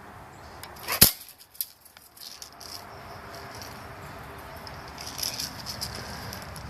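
A single sharp BB gun shot about a second in, followed by a fainter click, then a steady low rustling.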